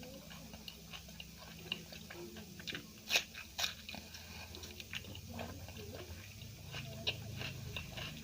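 Close-miked eating: crunchy bites and chewing, with two louder crunches about three seconds in.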